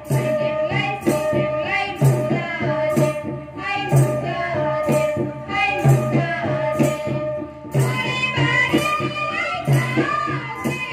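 Bodo Bagurumba folk dance music: a steady percussion beat about twice a second with heavier drum strokes, under a wavering, ornamented melody line.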